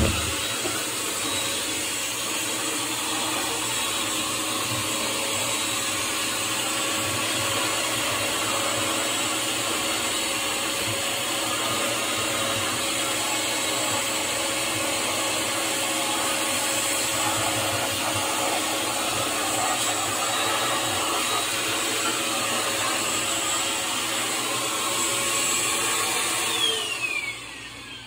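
An electric motor-driven machine runs steadily and evenly, then is switched off near the end, its whine falling in pitch as it spins down.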